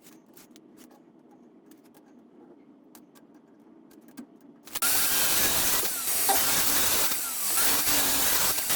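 Faint scattered clicks and light knocks at first. About halfway through, a power saw is heard loud and steady, cutting wooden slats to width, and it runs on to the end.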